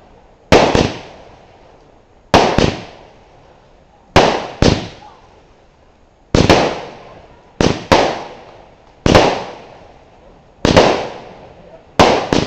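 WECO Big Crackles firework going off: a run of loud crackling bursts about every one and a half to two seconds, some coming in quick pairs, each dying away within about a second.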